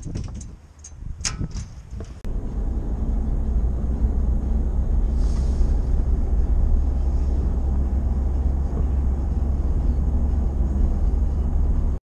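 A few sharp knocks, then from about two seconds in a steady heavy rumble of wind buffeting the microphone and road noise as a pickup tows the livestock trailer along a road.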